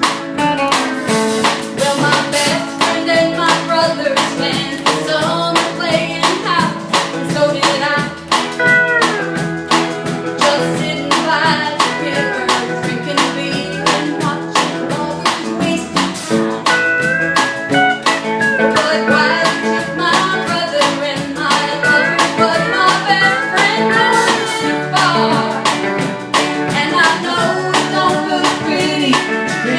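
A band playing live: guitars, steel guitar, bass and a drum kit keeping a steady beat, with a voice singing over them.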